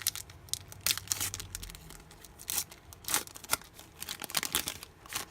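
Foil trading-card pack wrapper being torn open and crinkled by hand, an irregular run of sharp crackling rustles.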